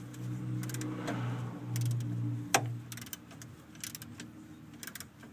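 Scattered metal clicks and taps from a wrench working a stubborn screw on the fuel filter's guard bracket, the loudest about two and a half seconds in. A steady low hum runs underneath.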